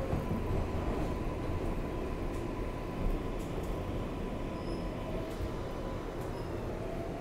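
R188 subway train running on the 7 line, heard from inside the car: a steady rumble of wheels on rail with a faint steady whine that fades out near the end, as a fainter, lower tone comes in.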